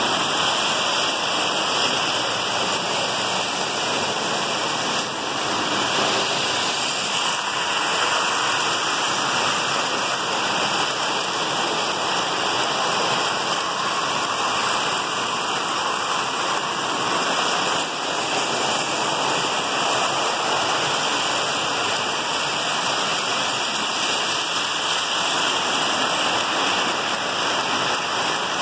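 Lionel electric toy trains running on metal track: a steady, even rushing whir of motors and wheels with no breaks.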